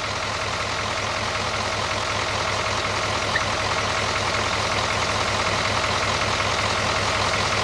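Utility bucket truck's engine idling steadily, with an even hiss over it.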